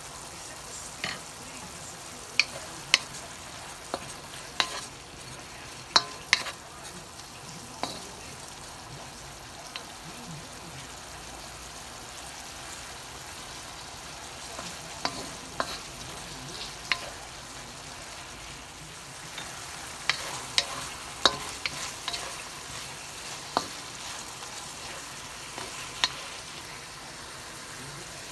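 Sliced beef sizzling steadily in a wok while a wooden spoon stirs it, with scattered sharp taps and scrapes of the spoon against the pan.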